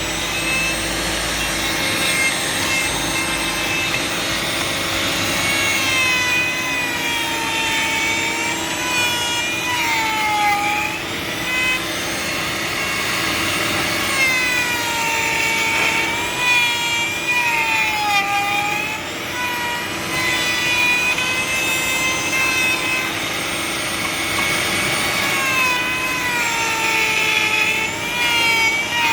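A power tool's motor running continuously, its whine dipping in pitch and recovering again and again as it is loaded against the work.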